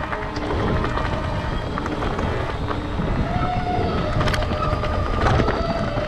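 Mountain bike rolling over a rough trail: wind buffeting the microphone, with tyre noise and sharp rattling clicks from the bike. A faint squeal comes and goes in the second half.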